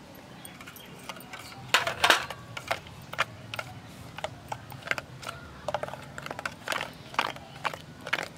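Steel spoon clinking and scraping against a stainless steel bowl while rice flour is stirred into a wet semolina batter. The irregular clinks start about two seconds in and come a couple of times a second.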